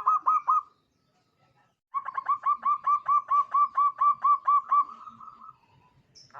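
Zebra dove (local perkutut) cooing. A short cluster of notes at the start, then after a pause a fast, even run of about a dozen staccato coos, about five a second, that ends in a longer drawn-out note.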